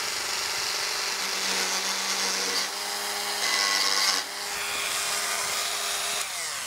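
Dremel rotary tool with a cutting disc grinding down the mushroomed head of a rivet on a 415 motorcycle chain, so that the pin can be pushed out. The motor runs with a steady whine while the grinding hiss swells and fades as the disc bites. Near the end it is switched off and winds down.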